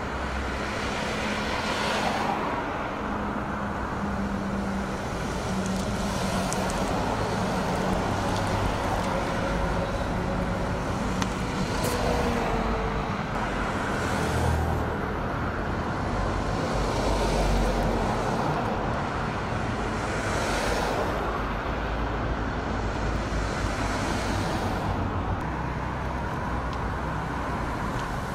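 Road traffic: cars and a lorry passing one after another on a busy road, over a steady rumble of traffic. Several vehicles swell up and fade away as they go by.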